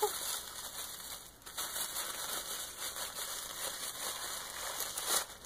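Tissue paper rustling and crinkling as it is handled and pulled apart, with a slightly louder crackle near the end.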